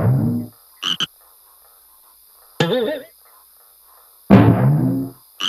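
Frog croaking: two deep, low croaks, one at the start and one about four seconds in, with a shorter, wavering croak between them and a quick pair of high chirps after each deep croak, over faint background music.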